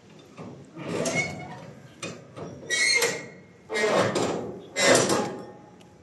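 Cargo tie-down strap on a flatbed trailer being ratcheted tight with a winch bar: a series of rasping strokes, the last three the loudest, about a second apart, some with a faint squeal.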